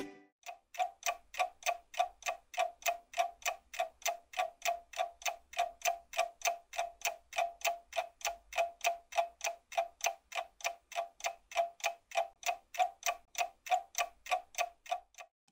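Clock ticking sound effect: an even run of short ticks, about three a second, each with a slight ring.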